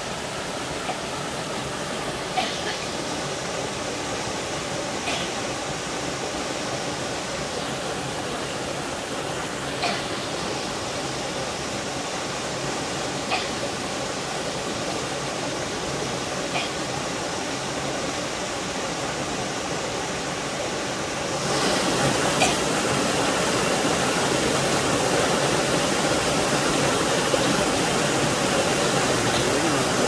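Small waterfall pouring over mossy boulders into a mountain stream pool: a steady rush of splashing water, stepping up in loudness a little past two-thirds of the way through.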